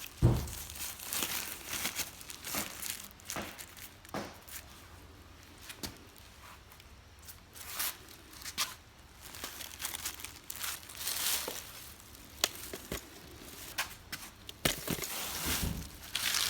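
Irregular crinkling and rustling of material being handled, broken by short clicks and knocks, with a sharp thump just after the start and a denser burst of rustling near the end.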